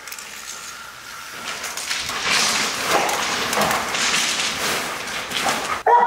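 A dog dragging and tugging a torn nylon inflatable costume, the fabric rustling and scraping, louder from about two seconds in, with stones knocking under it as it is pulled over a bed of river rocks.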